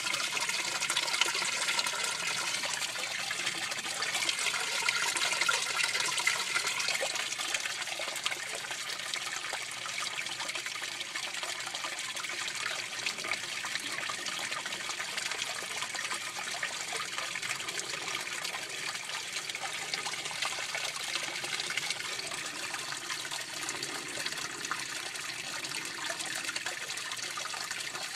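Water trickling and splashing steadily in an aquaponics fish tank, a little louder for a few seconds near the start.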